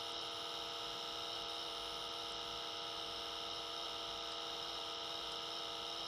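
Steady electrical hum with hiss: a set of fixed tones that hold without change.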